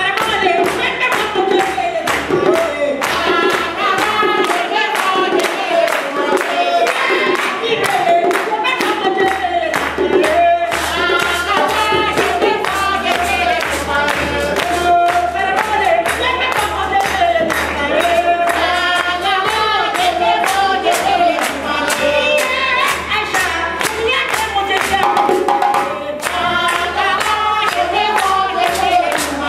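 Live West African drumming and singing: several djembes played in a fast, dense rhythm while voices sing a melody over them.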